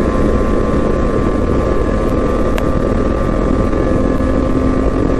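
Snowmobile engine running steadily under way on a packed snow trail, heard close from the handlebars, with a single sharp tick about halfway through.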